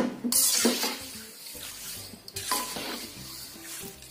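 A perforated metal skimmer knocking and scraping against a steel wok as it stirs and scoops shredded potatoes fried dry in hot oil, with the hiss of frying. There is a knock at the start, then scraping passes about a third of a second in and again after about two and a half seconds.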